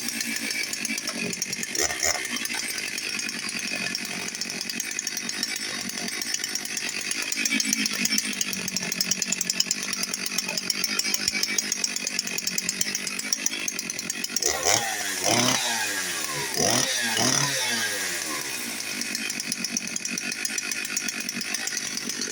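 Dolmar PS-6400 two-stroke chainsaw running steadily. It is revved briefly about two seconds in and given a quick run of revs up and back down about two-thirds of the way through.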